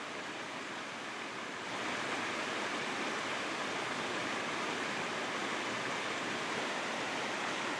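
Small waterfall of a tributary stream sliding down a rock slab into a creek pool, a steady rush of falling water that grows a little louder about two seconds in.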